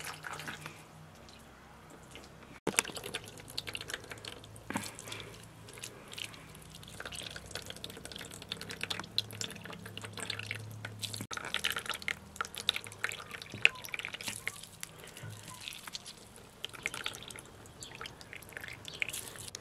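Water dripping and splashing into a plastic basin as a wet grated mash is squeezed and worked by hand, in quick irregular drips and small splashes.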